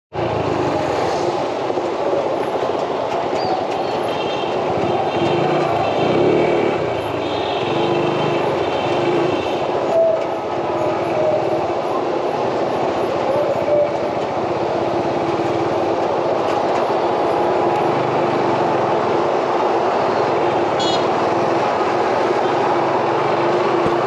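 Steady road and wind noise of a motorcycle under way, with the engine's hum running constantly underneath.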